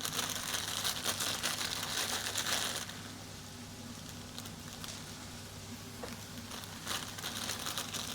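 Onion stir-fry sizzling in a frying pan: a steady crackling hiss, louder for the first three seconds and again near the end.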